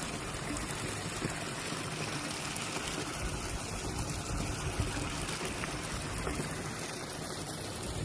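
Flowing water, a steady rushing hiss that keeps on evenly.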